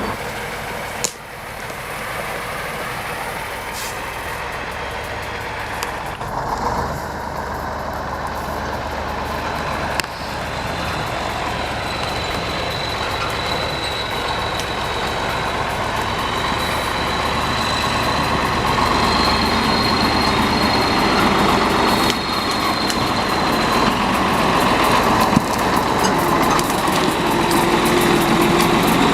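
T-150K wheeled tractor's diesel engine running steadily as the tractor drives, with a thin high whine over it and a few sharp knocks. The engine sound slowly grows louder toward the end.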